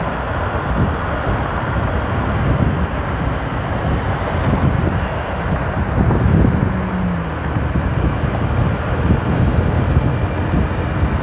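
Steady wind rush over the microphone of a motorcycle riding at highway speed, with engine and road noise underneath.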